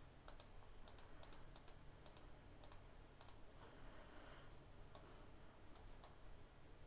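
Faint, irregular clicking of a computer keyboard and mouse, about a dozen sharp clicks spread over several seconds, over a low steady hum.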